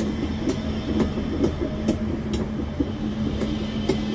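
Modern low-floor electric tram pulling away along the track: a steady electric hum over a low rolling rumble, with sharp clicks about twice a second.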